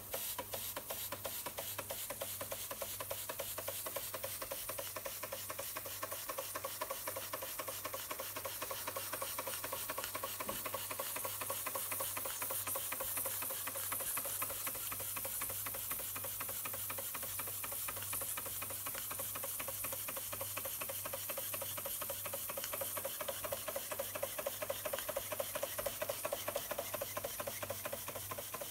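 Schoenner "Lipsia" toy live steam engine running at a steady speed: a rapid, even beat of exhaust puffs with steam hissing.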